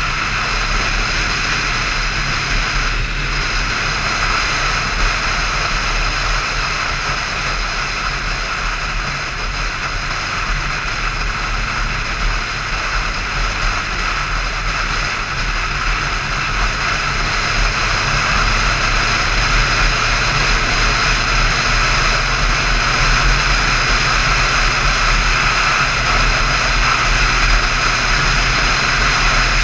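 Motorcycle cruising at a steady speed: its engine running steadily under heavy wind rush on the mount-filmed camera, growing a little louder in the second half.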